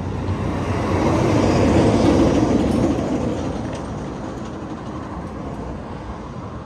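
A vehicle passing on the highway: tyre and road noise swells to a peak about two seconds in, then fades away.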